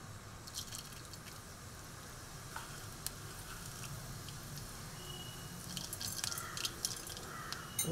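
Mustard seeds, cumin and urad dal sizzling faintly in a little hot oil, with scattered crackles and pops: the tempering stage of a South Indian stir-fry.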